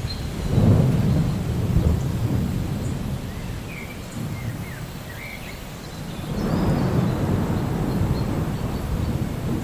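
Steady rain with thunder rumbling twice: a roll about half a second in, and a longer one starting about six seconds in.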